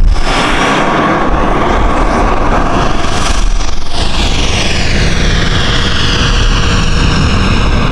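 Dynam Meteor V3 RC jet's 70 mm 12-blade electric ducted fan running at speed as the model flies by: a loud, rushing whine whose pitch falls from about four seconds in.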